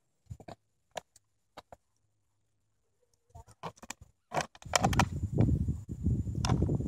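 Plastic bottle crackling and crunching in a dog's mouth: scattered sharp clicks, growing denser a little over three seconds in. From about five seconds in a loud low rumble joins the crackle.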